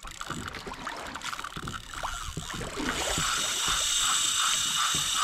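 Spinning reel being cranked against a hooked fish, a soft whir that pulses with each turn of the handle, over water washing against the kayak hull and wind.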